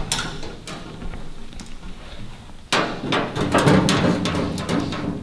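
Knocks and clatter of a race car's body panel being handled and taken off, sparse at first and then a busy run of knocks from about three seconds in.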